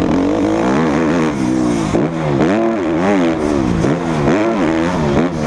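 Motocross bike engine ridden hard on a dirt track, revving up and dropping back again and again, roughly once or twice a second, as the throttle is worked and gears change. Heard from the rider's helmet with wind rush.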